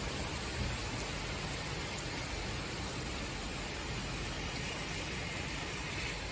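Heavy summer downpour: rain falling steadily, an even hiss with no let-up.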